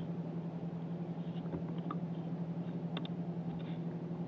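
Steady low hum of a bow-mounted electric trolling motor, with a few faint ticks.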